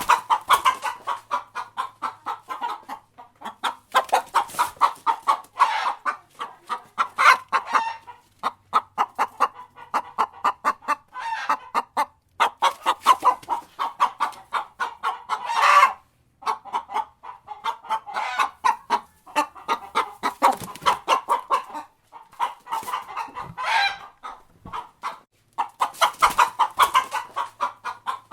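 Chicken clucking in rapid runs of short clucks, in bouts of a few seconds with brief pauses between them. A louder, drawn-out call rises out of the clucking about halfway through.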